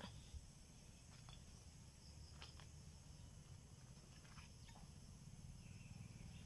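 Near silence: faint outdoor background with a low rumble and a few faint ticks.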